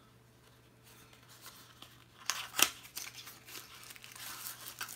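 Small cardboard box being opened by hand, then its paper packaging rustled and torn. Quiet at first; from about two seconds in come crackles and rustling, with one sharp snap the loudest.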